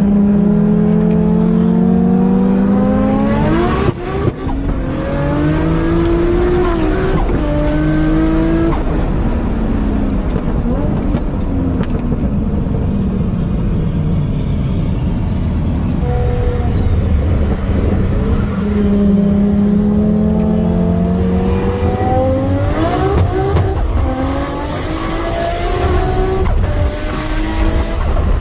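Turbocharged 2.6-litre stroker RB25 straight-six in an R33 Skyline GTS-T pulling hard, its pitch climbing through the revs with a gear change about four seconds in. It then backs off, with the pitch falling away for several seconds, before a second hard acceleration with rising pitch in the last third.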